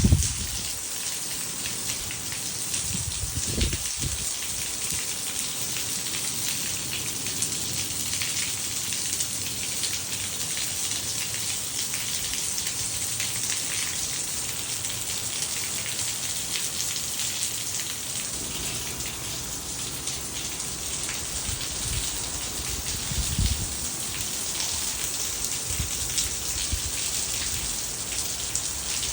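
Heavy rain falling steadily, with brief low rumbles about three and a half seconds in and again around twenty-three seconds.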